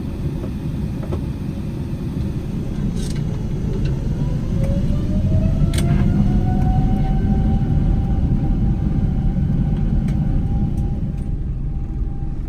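Boeing 747-8's four GEnx-2B engines spooling up for the takeoff run, heard inside the cabin. A deep rumble grows louder while a whine rises in pitch over a few seconds and then holds steady, with a few short sharp knocks.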